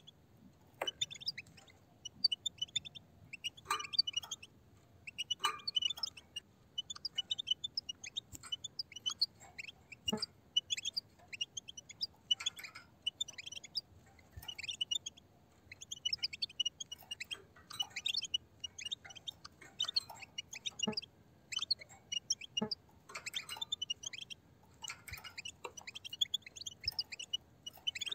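A flock of European goldfinches twittering together: a continuous, busy stream of short, high chirps and trills, with occasional sharp clicks.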